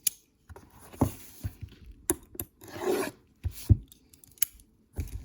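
Hands handling trading cards and their packaging: short rubbing and sliding scrapes with a few light taps and clicks.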